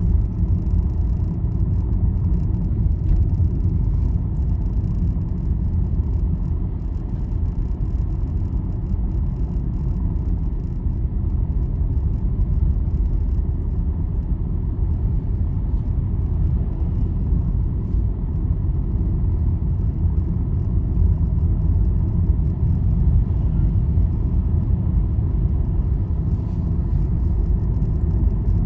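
Vehicle cruising along a highway: a steady low rumble of engine and road noise that holds even throughout.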